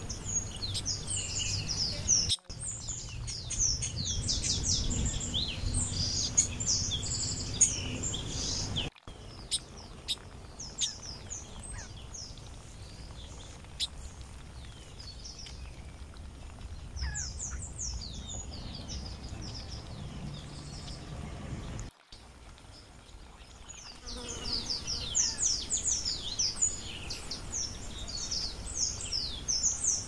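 Many small songbirds chirping and twittering in quick, high-pitched bursts. The chirping is densest in the first several seconds and again over the last six, sparser in between, over a low background rumble. The sound drops out abruptly a few times.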